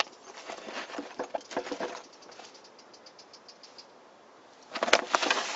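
Hands handling a nylon camouflage backpack and a black MOLLE pouch on its webbing: a run of rustles and small clicks, quieter in the middle, then a louder rasping burst of fabric noise near the end.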